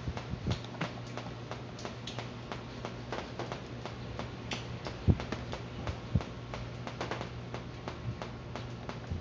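Small clicks and taps of hands handling and twisting wires inside an electric fan's base, with two louder thumps about five and six seconds in, over a steady low hum.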